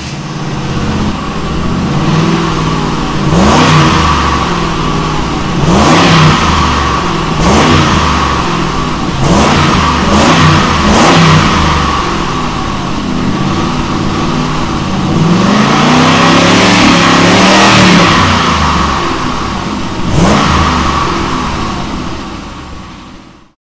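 Ford Explorer 4.6-litre V8 on its stock exhaust, revved in a series of short blips with one longer rev about two thirds of the way through, dropping back between revs.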